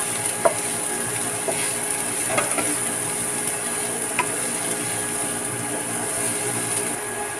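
Diced onion and carrot sizzling steadily in a little olive oil in a nonstick frying pan as they are stirred with a wooden spatula, with a few light knocks of the spatula against the pan.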